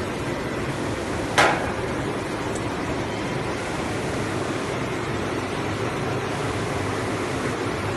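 Six-colour flexographic printing press running, a steady mechanical hum and rush from its rollers and drives. A single sharp knock sounds about a second and a half in.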